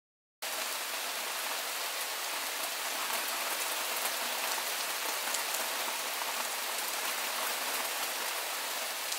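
Steady rain falling, an even hiss with faint ticks of single drops; it starts suddenly about half a second in.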